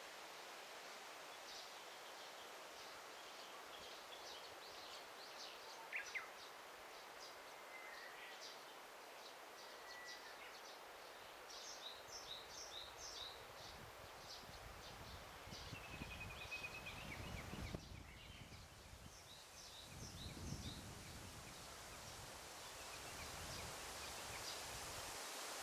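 Faint daytime forest ambience: many small birds chirping throughout, with a few clear whistled notes, over a steady hiss of rustling leaves. A low rumble swells and fades in the second half.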